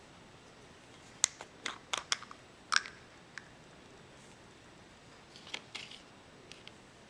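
Black plastic screw cap being twisted off a small glass concentrate jar: a run of sharp clicks between about one and three and a half seconds in, and a second short cluster of clicks about five and a half seconds in as the cap comes off and is set down.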